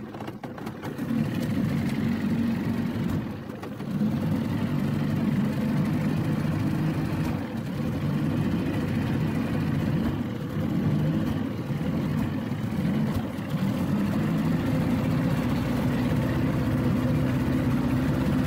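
Small outboard motor running steadily, pushing a boat under way, with a steady hum that drops briefly about half a second in and again around three to four seconds in.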